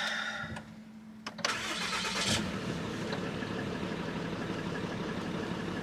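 Ram 3500's 6.7 Cummins turbodiesel inline-six, heard from inside the cab, cranks for about a second starting about a second and a half in, then catches and settles into a steady idle. It sounds normal, with no exhaust leak, on a freshly refitted exhaust manifold.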